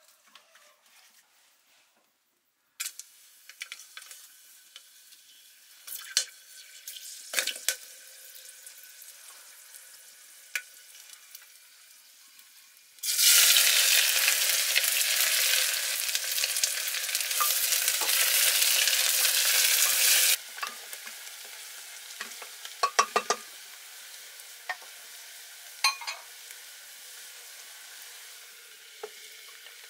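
Sliced onions dropped into hot oil in an aluminium pressure cooker set off a loud sizzle for about seven seconds, starting about 13 seconds in. Before it the oil crackles faintly with scattered clicks. After it the onions fry more quietly, with occasional taps and clicks.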